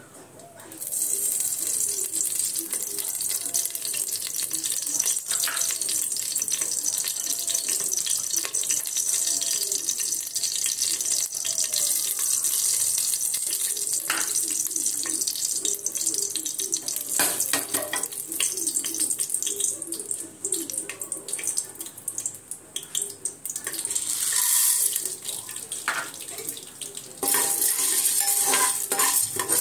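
Hot oil sizzling in an aluminium pressure cooker, a steady hiss that starts sharply about a second in. Near the end it grows louder as popcorn kernels go in and are stirred with a metal spoon, scraping against the pot.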